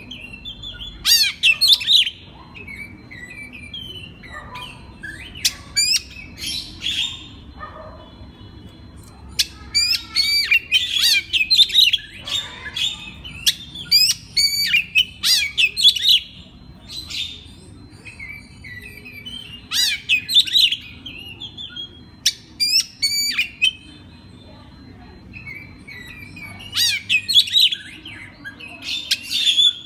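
Oriental magpie-robin (kacer) singing in bursts of rapid, high whistles, trills and chatter. The phrases run for a few seconds at a time with short pauses between them.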